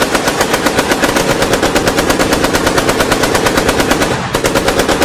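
Sustained automatic gunfire: a fast, even string of shots with a brief dip about four seconds in.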